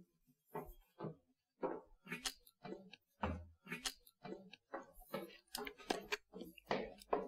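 Footsteps on a hard floor, a person walking at an even pace, about two to three steps a second.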